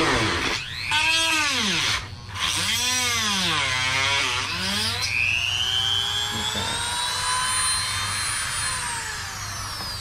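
Handheld rotary tool with a cut-off wheel, its small motor whining as it cuts a car door panel. The pitch rises and falls twice, climbs about five seconds in to a steady high whine, and winds down near the end.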